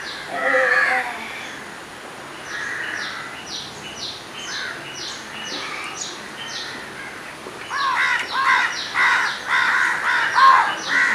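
Crows cawing: one call about half a second in, then a quick run of repeated caws from about eight seconds in. Short high chirps repeat steadily through the middle.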